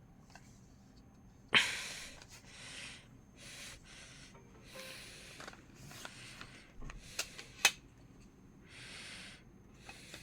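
A sharp click followed by a series of short scratchy rubbing noises, each under a second long, with two more quick clicks about two thirds of the way through.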